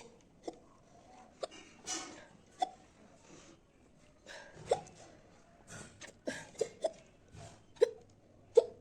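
A woman hiccuping repeatedly: about eight short, sharp hics at uneven intervals, one or two seconds apart and twice in quick succession about six and a half seconds in. It is a bout of persistent hiccups that will not stop.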